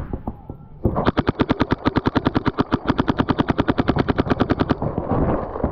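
Paintball marker firing a rapid string of shots, about ten a second, for nearly four seconds, heard close up from a camera on its barrel. It is followed by a stretch of irregular, fainter popping.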